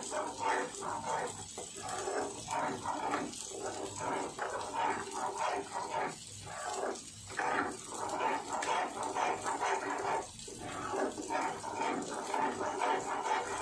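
A steel spatula stirs and scrapes thick ground moong dal paste as it fries in a kadai, for roasting the masala and dal. Repeated short pitched calls sound over it.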